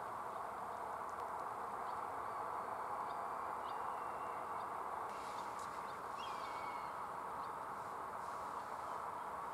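Countryside ambience: a steady even hiss, with scattered short bird whistles and a falling whistled call about six seconds in.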